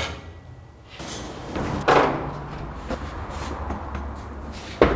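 Wooden knocks and thumps from the cabin's hinged plywood furniture being handled, the loudest about two seconds in, and a chair set down on the plywood floor near the end, over a steady low rumble from the overpass traffic.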